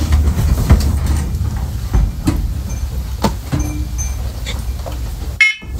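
Handling noise as plastic smoke and carbon monoxide alarms are fumbled with and reconnected: scattered clicks and knocks over low rubbing and rumble.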